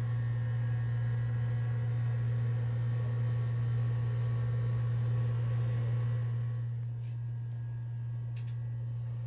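A steady low hum with one unchanging pitch, a little quieter in the last couple of seconds, with a few faint clicks near the end.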